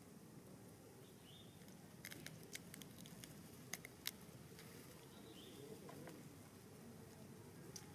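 Near silence with a quick run of faint clicks and crackles in the middle, the two sharpest just under half a second apart, as a mother macaque handles and bites into a piece of food.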